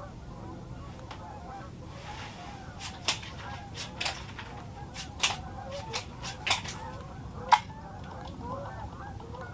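A flock of geese honking and calling continuously, with several sharp clicks from about three seconds in, the loudest one near the end.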